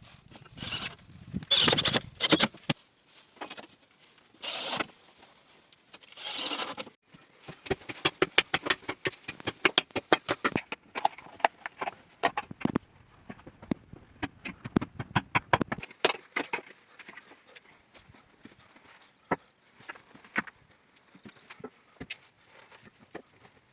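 A few short scraping or rustling bursts, then a fast run of sharp knocks and taps, several a second for about eight seconds, thinning out to scattered knocks near the end.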